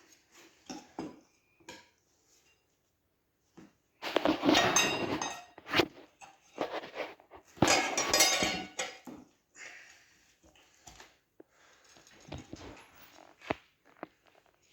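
Tire irons clinking and scraping against a dirt bike wheel rim as the tire is levered on, with two louder spells of scraping and clatter in the middle.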